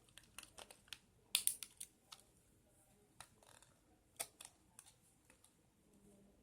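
Earphone packaging being handled and opened by hand: faint, scattered small clicks and crinkles, with a short flurry about a second and a half in and another near the middle.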